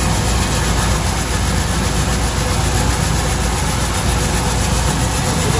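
Coin-operated rice polishing mill running steadily, with a stream of freshly milled rice grains pouring out of the chute into its stainless-steel bin.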